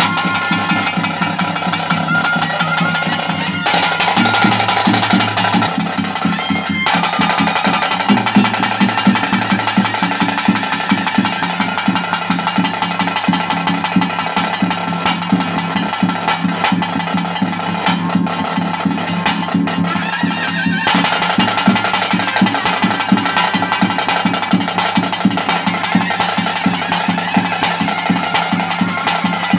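Ritual drum music for a Tulu Nadu nema (spirit-worship) dance: fast, continuous drumming with a sustained pitched melody over it.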